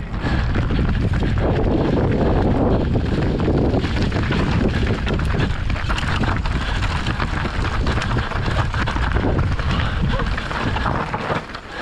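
Wind rushing over a GoPro microphone as a Yeti SB150 full-suspension mountain bike rides fast down a rocky trail, its tyres rolling over stones and the frame and components rattling with frequent knocks. The noise eases off near the end.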